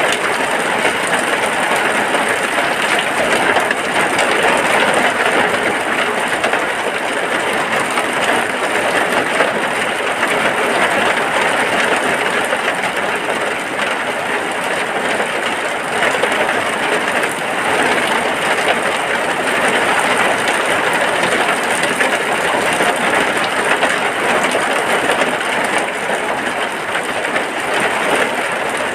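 Steady rain falling without a break, a dense even patter of drops.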